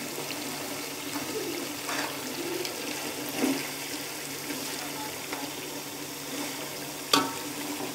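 Mutton and onions bubbling and sizzling in the last of their liquid in a metal pot, with a steady hiss. A steel spatula stirs and scrapes against the pot a few times, the sharpest scrape about seven seconds in.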